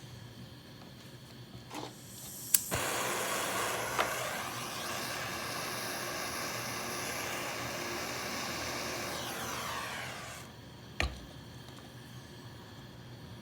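A sharp click, then a propane gas flame hissing loudly and evenly for about eight seconds before it cuts off, followed by another click. Beneath it runs a fainter steady hiss.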